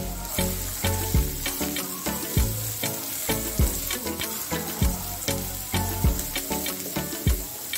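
Sliced onions and garlic sizzling in hot oil in a nonstick frying pan, stirred with a plastic spatula, over background music with a beat.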